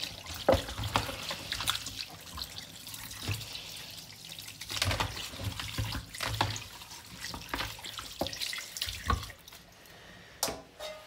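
Kitchen tap running onto raw goat meat in a plastic colander while hands rub and turn the pieces, water splashing with many small splashes. The water stops near the end.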